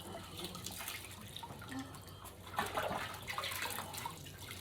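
Faint water splashing and dripping in a tub as puppies are bathed, with a few louder splashes partway through.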